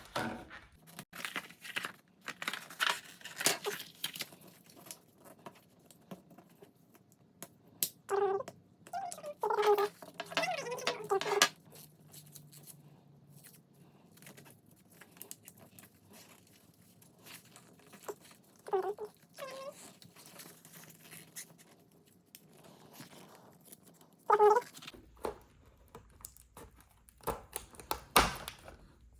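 Light clicks and rustling from handling a car key fob's plastic case, with a few short high-pitched calls in between, the longest run of them about a third of the way in.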